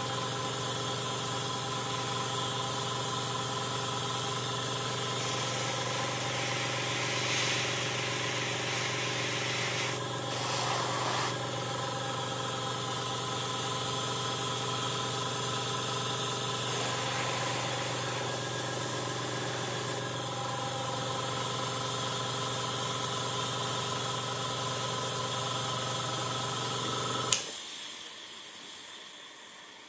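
Airbrush compressor running with a steady hum while the airbrush hisses, the hiss swelling as paint is sprayed onto the model. The compressor's hum stops with a click near the end.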